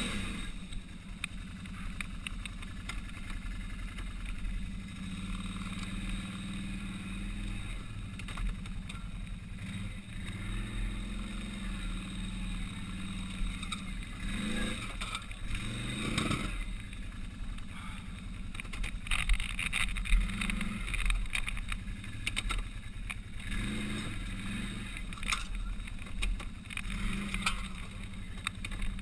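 Can-Am ATV engine idling low with short throttle blips that rise in pitch now and then as the quad creeps over steel grates, with occasional knocks, the loudest about two-thirds of the way in.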